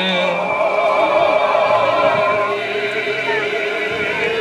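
Mixed choir of men's and women's voices singing a slow, sustained liturgical response with vibrato, answering the priest's closing doxology.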